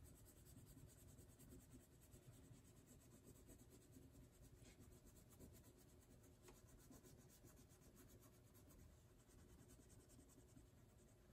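Very faint scratching of a crayon rubbed back and forth on chart paper as a drawing is colored in, with a few faint ticks.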